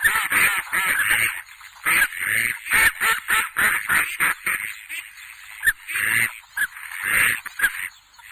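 A group of domestic ducklings peeping in rapid, overlapping high calls, with a couple of short lulls.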